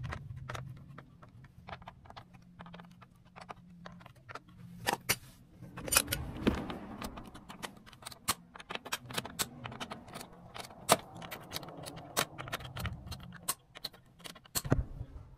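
Irregular metallic clicks and clinks, a few of them sharp and loud, like small metal objects or tools being handled, over a faint low hum.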